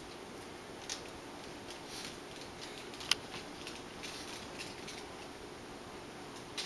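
Quiet room tone with a low steady hum, broken by a few faint small clicks, the sharpest about three seconds in.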